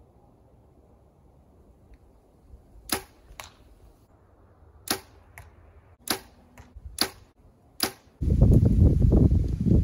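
Compound bow being shot: a series of sharp snaps of the string on release, the first about three seconds in, several followed about half a second later by a fainter knock of the arrow striking the target. Near the end a loud, steady, low rushing noise takes over.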